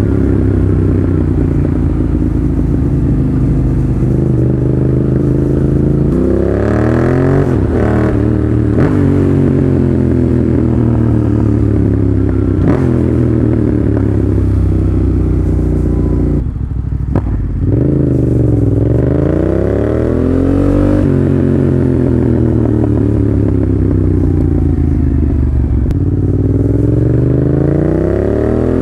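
Yamaha FZ-07's parallel-twin engine running through a LeoVince full exhaust, loud, its note rising and falling repeatedly with throttle and gear changes while riding, with a brief break in the sound about halfway through.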